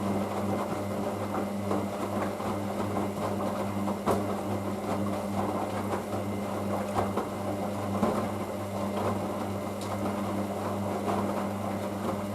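Hoover DYN9144D3X washing machine draining: the drain pump hums steadily, with scattered clicks and water noise over it.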